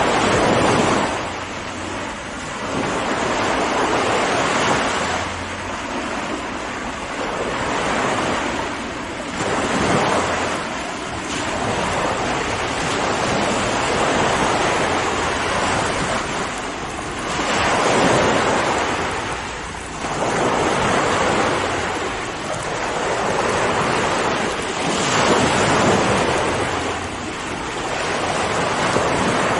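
Ocean waves breaking and washing on a shore, a steady rushing surf that swells and eases every few seconds.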